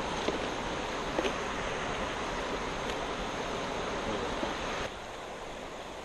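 Steady rushing of creek water running over rocks, with a few faint clicks in the first few seconds; the rushing drops suddenly to a lower level about five seconds in.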